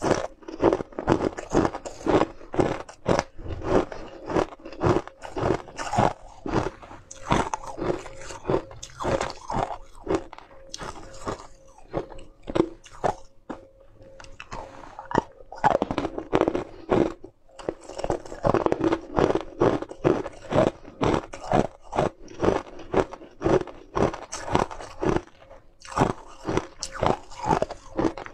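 Close-up crunching of frozen flavoured ice cubes being bitten and chewed. Sharp crunches come several a second, with a few brief lulls.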